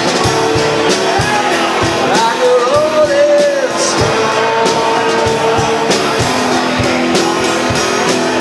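A small rock band playing live: a male voice sings over strummed acoustic guitar and a drum kit.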